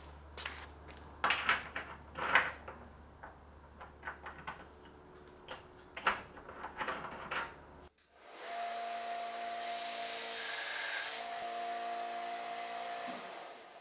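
Scattered knocks and clicks of metal parts being handled. Then, from about eight seconds in, a power tool runs steadily for about five seconds with a hiss that rises for a moment and drops back, stopping shortly before the end.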